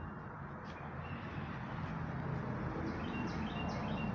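A songbird singing a quick run of about four repeated high chirping notes near the end, over a steady outdoor background hiss and a low rumble.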